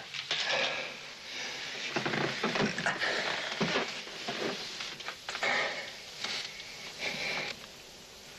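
A man's pained gasps and heavy, breathy groans, one after another, while he struggles against being held down for treatment of a bullet wound. They die away near the end.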